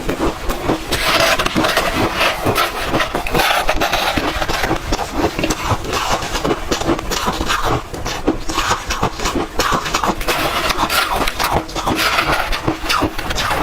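Hard red ice being bitten and chewed close to the microphone: a steady run of loud, rapid crunches and crackles without a break.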